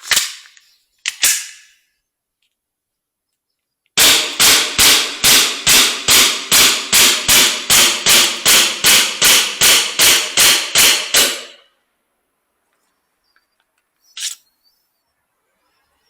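Kizuna Works KW-15K gas-blowback airsoft pistol firing a steady string of about twenty shots, a little under three a second. Two shorter sharp sounds come first, and a single click follows a few seconds after the string.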